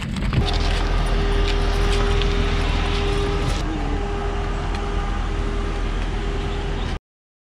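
A motor vehicle running steadily, a low rumble with a held droning hum, which cuts off suddenly near the end.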